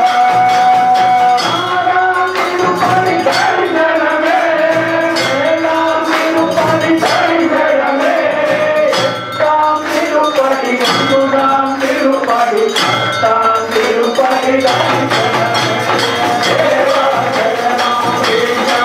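Devotional music: a wavering melodic line over regular percussion strikes, with no break.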